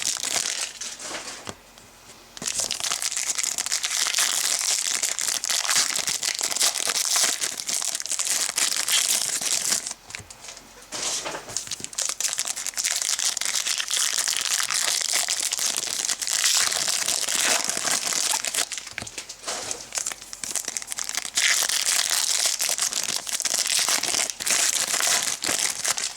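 Foil trading-card pack wrappers crinkling and tearing as packs are opened and handled. The crinkling comes in long stretches, with short lulls about a second in and about ten seconds in.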